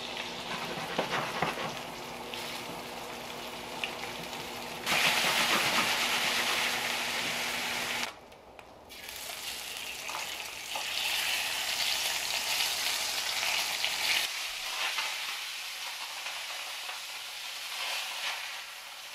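Fish fillets sizzling in hot oil in a stainless steel frying pan as they are laid in. The sizzle grows louder about five seconds in and breaks off briefly near eight seconds.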